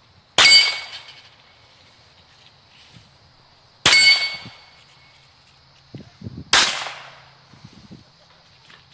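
Three handgun shots at a steel plate rack, about three seconds apart. After the first two comes the ring of a struck steel plate. A few low thuds come just before the third shot.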